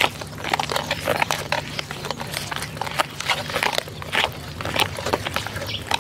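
Thick chocolate cake batter being stirred by hand in a bowl: wet squelching and slapping in quick, irregular strokes.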